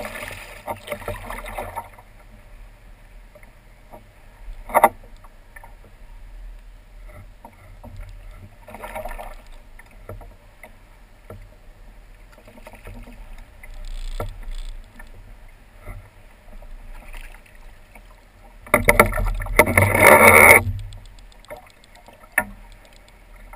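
Water slapping and splashing against a plastic kayak hull while a hooked salmon is played beside the boat, with a sharp knock about five seconds in. Near the end comes a loud burst of splashing lasting about two seconds as the fish is brought to the landing net.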